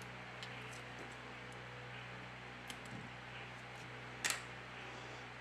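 Faint clicks and taps of a spudger and fingers working on a smartphone's opened internals, with a sharper double click about four seconds in, over a steady low hum.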